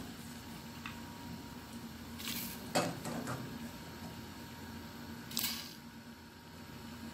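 Kitchen pots and utensils being handled: a short scrape about two seconds in, then two sharp clinks, and another scrape a few seconds later, over a steady low hum.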